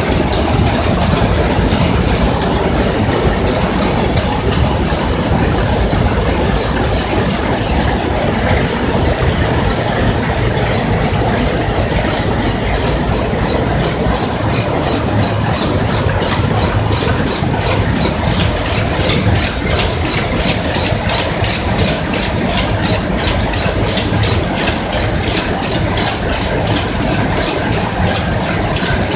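Many rapier looms running together in a weaving shed, the nearest a Shiva DR II weaving linen. A loud, dense mechanical clatter with a fast, even beat of high-pitched metallic clacks from the looms' beating and rapier strokes.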